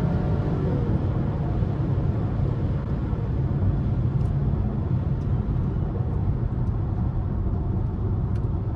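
A 5th-generation Chevrolet Camaro SS's 6.2-litre V8 heard from the cabin, its pitch dropping about half a second in as the revs come down. It then settles into a steady low rumble, mixed with tyre noise on the wet road.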